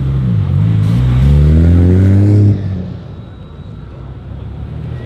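A car engine revving as the car pulls away, rising in pitch for about two seconds. About two and a half seconds in, the throttle is shut suddenly and the sound falls to a quieter, lower drone.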